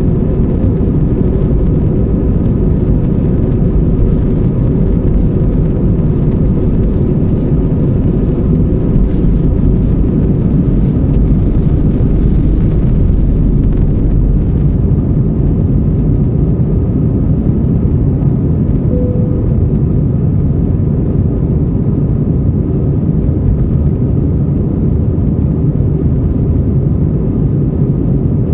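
Jet airliner engines running, a loud steady rumble with a faint steady whine over it.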